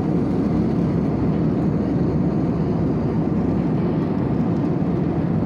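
Jet airliner cabin noise in flight: the engines and airflow heard from inside the cabin as a low, even noise that holds steady.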